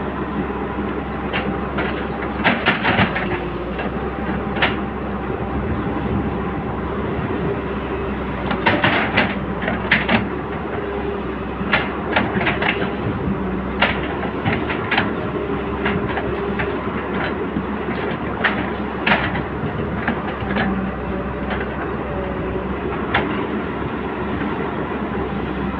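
Excavator's diesel engine running steadily, with sharp clanks and knocks at irregular intervals, several in quick clusters, as the bucket and boom work and scrape wet soil in the canal bed.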